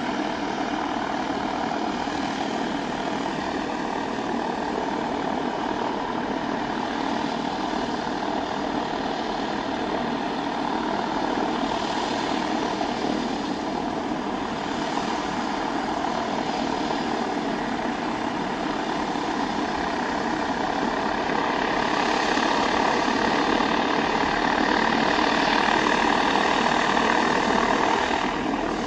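Antonov An-22's four Kuznetsov NK-12 turboprops, with contra-rotating propellers, running steadily on the ground with a constant droning hum. It grows somewhat louder in the last third.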